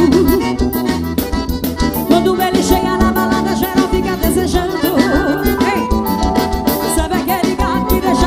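Forró music played by a band, with accordion, a steady percussion beat and a sung vocal line.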